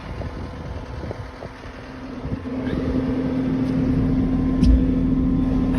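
Skid steer engine running steadily with a constant hum, getting louder about halfway through.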